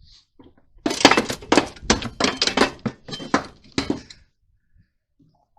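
Rapid metal clanking and knocking for about three seconds as a Holden Commodore front strut assembly is wrestled out of the car, striking the surrounding suspension parts, then it stops.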